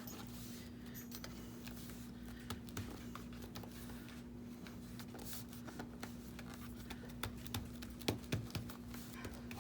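Faint scattered taps and rustles of paper and card being pressed and handled while freshly glued pieces are squished down, with a few sharper taps near the end. A steady low hum runs underneath.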